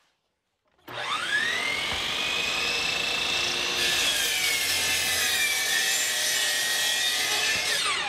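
Hitachi miter saw starting up with a rising whine about a second in, then crosscutting 3/4-inch plywood, its whine dropping in pitch as the blade goes through the wood. It is switched off near the end and winds down with a falling whine.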